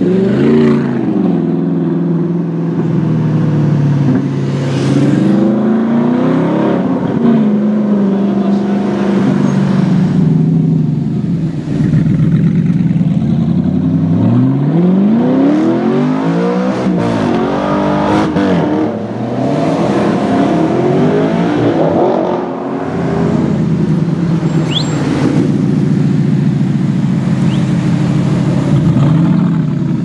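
Audi R8 on a loud aftermarket exhaust, idling steadily and revved several times, each rev sweeping the engine note up and letting it fall back to idle.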